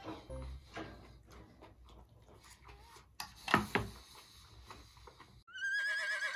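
Quiet eating sounds with a few sharp clicks of chopsticks against a ceramic rice bowl about three and a half seconds in. Near the end a whinnying sound effect starts, its pitch wavering.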